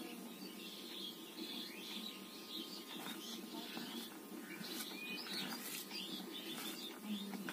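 Bare fingers mixing and squeezing cooked rice on a steel plate: faint, sticky squishing with small clicks, over a steady low hum.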